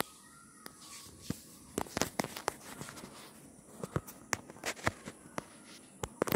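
Graphite pencil drawing on a sheet of paper: light, irregular scratches and clicks as the strokes are made, bunched around two seconds in and again about four to five seconds in.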